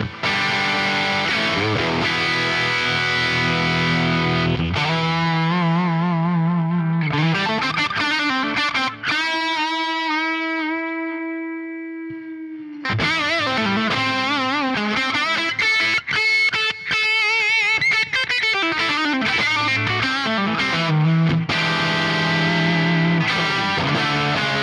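Overdriven electric guitar from a Les Paul with 1958/59 PAF humbuckers played through a 1966 Marshall JTM45 amp and heard through a Celestion V30 speaker, playing riffs and chords. About nine seconds in, a single note is held with vibrato and left to fade, then the riffing starts again.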